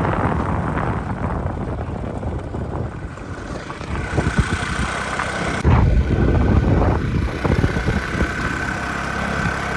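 Vespa scooter engine running while riding along a road, with rough wind noise on the microphone; the sound changes abruptly a little past halfway.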